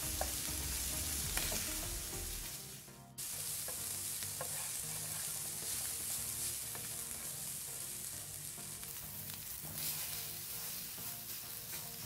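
Beef and sausage pieces sizzling in hot oil in a nonstick wok as they are stir-fried with a wooden spatula, with a few light clicks and scrapes of the spatula on the pan. The sizzle drops out briefly about three seconds in, then carries on.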